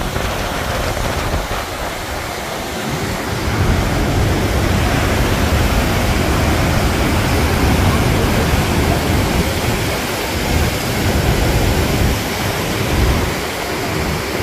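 Rhine Falls' white water rushing over the rocks in a loud, steady roar of noise, getting a little louder and deeper about three and a half seconds in.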